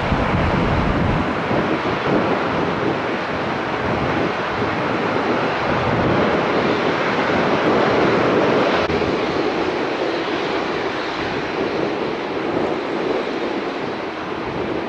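Boeing 787 jet airliner's engines during the landing roll just after touchdown: a loud, steady jet rush that swells around eight seconds in, then drops off abruptly. After that comes a quieter, rushing noise of a distant airliner on approach, with wind on the microphone.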